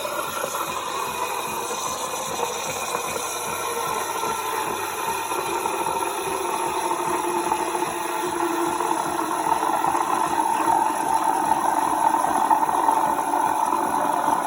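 KRUPS EA8178 bean-to-cup coffee machine's steam frother frothing a jug of milk: a steady hiss and gurgle that grows slowly louder.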